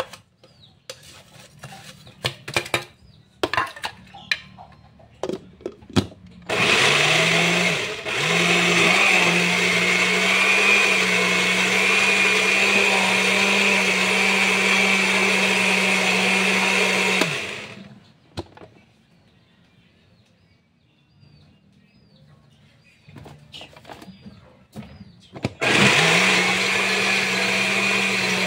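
Countertop blender motor running, blending ice and ube flavouring into a purple slush. It starts about six seconds in, cuts out briefly and restarts, runs steadily for about ten seconds and stops, then starts again near the end; small knocks and clicks of the jar and lid being handled come before and between the runs.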